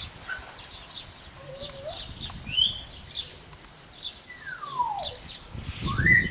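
Small birds chirping in quick, short high notes, with a long falling whistle about four and a half seconds in and a rising whistle near the end. A low rumble starts near the end.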